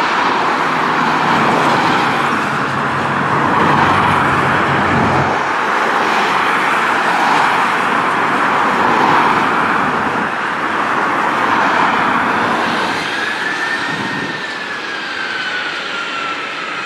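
Jet engine roar of a three-engine FedEx DC-10-family freighter landing and rolling out, a loud steady rush that eases off after about twelve seconds. Near the end a single engine whine rises and then falls.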